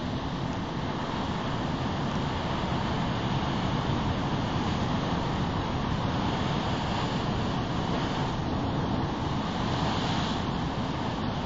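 Heavy ocean surf breaking and churning over rocks: a steady rush of water with no single standout crash.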